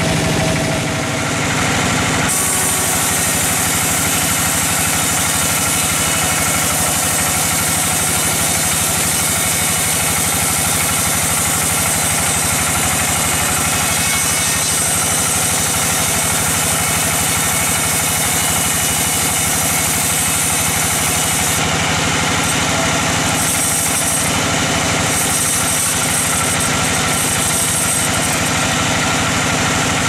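Band sawmill running steadily, its band saw blade cutting lengthwise through a kenitu (star apple) log with a continuous mechanical drone.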